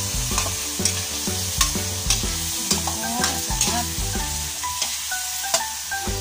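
Metal spatula scraping and clacking against an aluminium wok as string beans and pork are stir-fried, over a steady sizzle. Light background music plays underneath.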